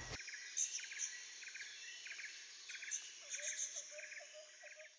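Faint outdoor nature ambience of calling insects and birds: a chirp of several quick clicks repeats about every half second. From about three seconds in, a lower, rapid series of short notes joins it.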